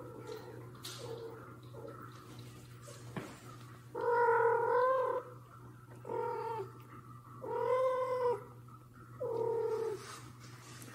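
Adult cat meowing four times in a row, drawn-out meows of half a second to just over a second each, the first the longest, starting about four seconds in.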